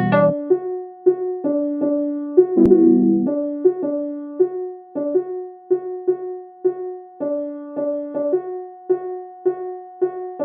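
Electronic keyboard playing a slow solo melody with held piano-like notes, a new note struck about every half second, in a forró song's instrumental break. The bass and drums cut out just after the start.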